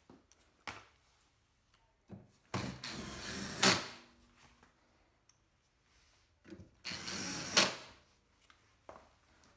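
Power drill-driver driving screws into a dishwasher's sheet-metal service access panel: two short runs of about a second each, each ending in a sharp louder peak, with a few light handling clicks between them.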